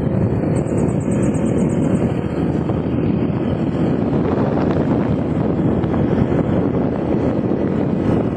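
Steady low rumble of a vehicle on the move, with wind buffeting the microphone. A brief run of fast, faint high ticks comes about a second in.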